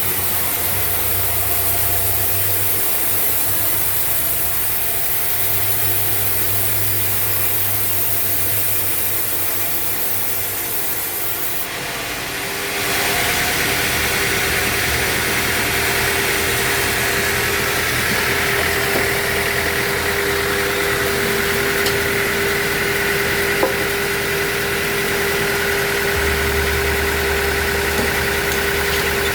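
Band sawmill running, sawing desert acacia wood. About twelve seconds in, a high hiss stops and after a brief dip a steady machine hum with a held tone takes over.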